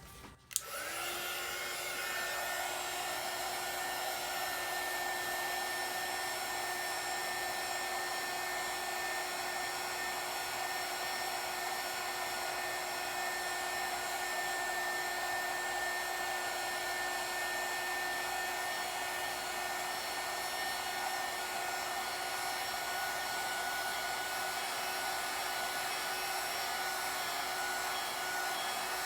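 Heat gun switched on with a click; its fan spins up within about a second, then blows steadily with a constant whine.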